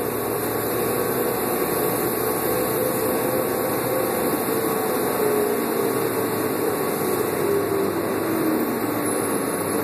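Inside a 2001 New Flyer C40LF transit bus under way: the steady drone of its Doosan CNG engine mixed with road and ventilation noise. A faint whine in it slides down in pitch over the last few seconds.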